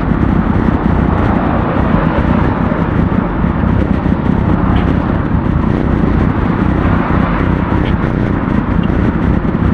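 Steady rushing of road traffic and wind, picked up by an action camera's microphone while cycling on a city street.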